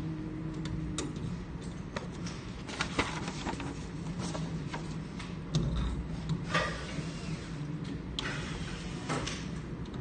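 Clicks and rustles of insulated control wires being handled and pressed into slotted plastic wire duct on a control panel, several short scraping bursts and sharp clicks, over a steady low hum.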